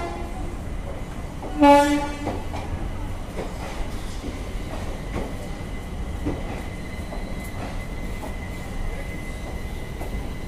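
Indian Railways passenger coaches rolling slowly past along the platform: a steady low rumble with faint wheel clicks. A short horn toot sounds about two seconds in, and a thin, steady high tone, like wheel squeal, sets in about seven seconds in.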